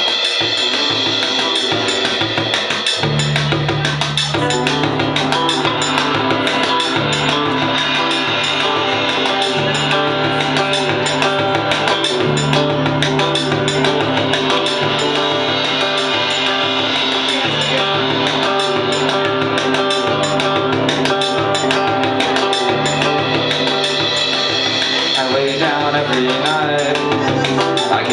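Live rock band playing an instrumental passage: a drum kit beat, with an electric bass line coming in about three seconds in and acoustic guitar about a second later.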